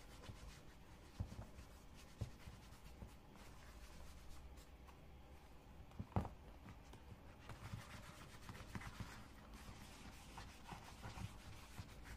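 Faint rubbing and handling of a leather wallet as hands work it over with a cloth, with a few light knocks; the sharpest knock comes about six seconds in and the rubbing thickens soon after.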